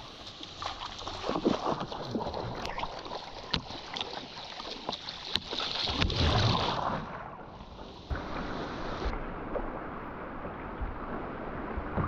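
Paddle strokes and water splashing and sloshing against a sea kayak's hull, with the loudest rush of water about six seconds in as the kayak is heeled far onto its side. The sound shifts abruptly near eight seconds to a steadier wash of water.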